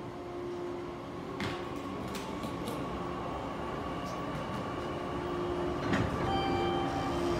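JR 415-series electric train standing at the platform, its equipment humming steadily, with sliding-door knocks about one and a half seconds in and a louder one about six seconds in as it gets ready to pull out. A few short steady tones at different pitches sound near the end.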